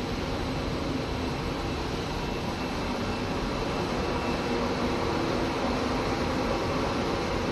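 Steady running noise of a rubber sealing-strip extrusion and microwave vulcanization production line: a continuous mix of low hum and hiss with a faint high steady whine.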